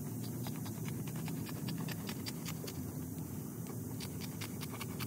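Scissors snipping up the belly scales of a dead cottonmouth: a quick, irregular run of small sharp clicks, several a second, over a steady low background noise.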